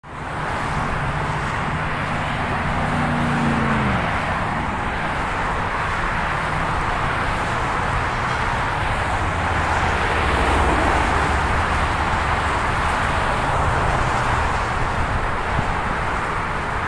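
Steady freeway traffic passing close by: a continuous hiss of tyre noise, with one vehicle's engine hum dropping in pitch about four seconds in and a deeper engine drone swelling around the middle.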